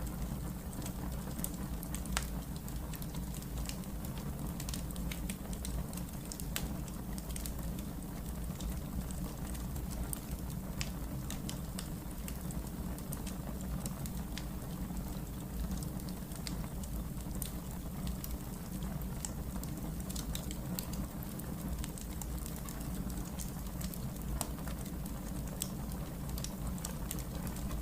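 Firewood burning, crackling with frequent irregular sharp pops over a steady low rumble.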